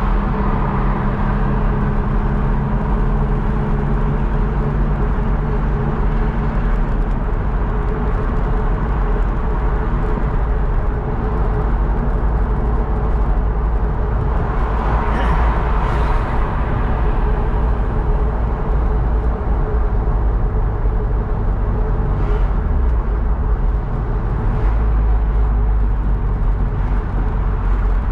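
A car driving on a road, heard from inside the cabin: a steady low engine hum under tyre and road noise, with a brief swell of noise about halfway through.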